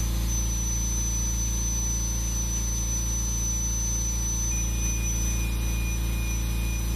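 High-speed power carver running at about 250,000 RPM: a steady high-pitched whine over a low hum. A second, lower whine joins about four and a half seconds in.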